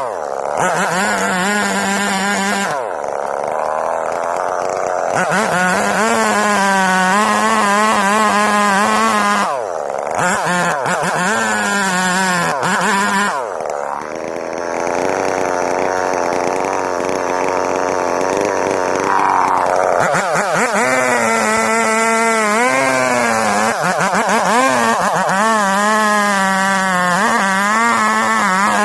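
Chainsaw running hard and cutting coconut palm wood, its engine pitch wavering up and down under load. It drops back sharply three times, about 3, 10 and 14 seconds in, then revs up again.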